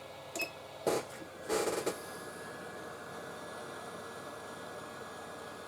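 A hot air rework station's beep as its setting is stepped up, a sharp click and a brief clatter, then its blower hissing steadily from about two seconds in.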